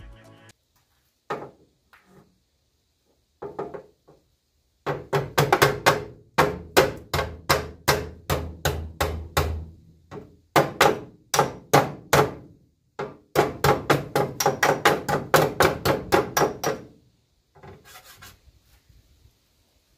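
Hammer blows on the rusty sheet-metal flange of a car's inner wing. A few single blows come first, then three quick runs of sharp strikes at about three a second, separated by short pauses, with a last few blows near the end.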